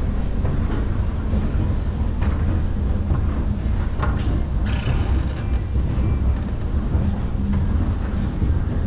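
Steady low rumble of city traffic, with a click about four seconds in and a short, sharp hiss just after it.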